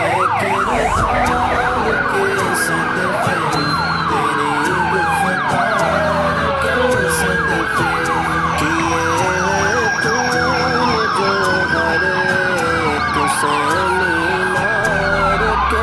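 Several vehicle sirens sounding together: a fast yelp for about the first second, then slow, overlapping wails that rise and fall every two to three seconds.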